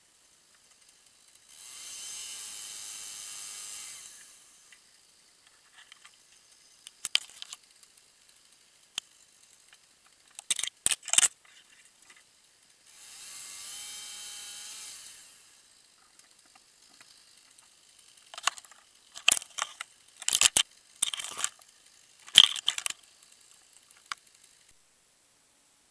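Tree-climbing gear and branches handled aloft: scattered sharp clicks and snaps of metal hardware and twigs, bunched in the second half. Twice, near the start and again in the middle, a steady hissing rush lasts a couple of seconds.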